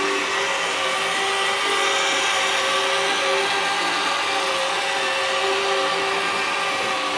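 Small electric motor of a battery-powered toy Thomas train running, a steady whir.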